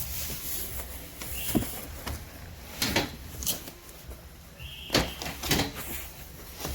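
Several sharp knocks and clatters a second or more apart, like things being handled, over a low steady hum, with a short high tone just before the loudest knock.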